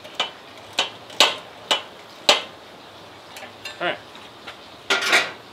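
Sharp metal clicks and clanks from a rotisserie spit and its motor being fitted together: about five in the first two and a half seconds, then a few more near the end.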